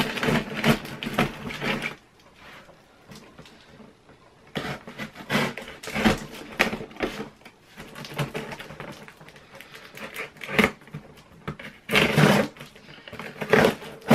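Packing tape on a cardboard box being cut and pulled open with a small blade, the cardboard scraping and rustling in irregular bursts with sharp clicks.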